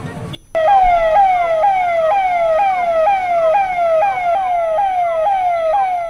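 Electronic siren sounding a fast repeating falling sweep, about two sweeps a second, sounded as a public warning to wear masks. It starts after a brief break about half a second in.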